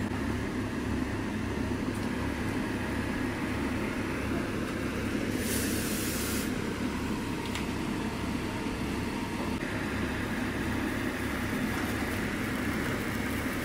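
A steady low machine rumble, with a brief hiss about five and a half seconds in.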